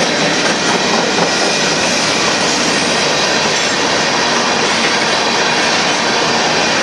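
Freight train cars rolling past, a steady, loud noise of steel wheels running on the rails.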